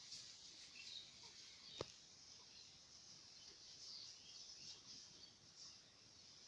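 Near silence: faint rural ambience with scattered bird chirps over a steady high insect hiss, and a single sharp click about two seconds in.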